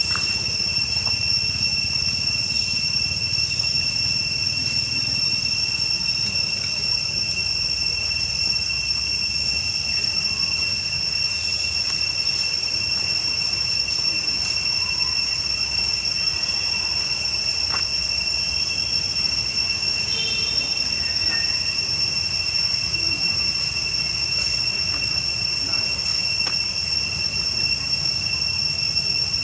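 A steady, shrill insect chorus drones without a break as one even high whine, over a low rumble.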